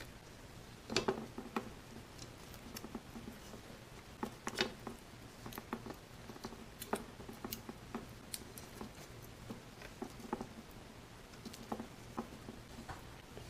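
Faint, irregular crinkling and rustling of shiny plastic ribbon being wrapped and knotted around a thin wooden stick, with a few louder crackles about a second in and again a few seconds later.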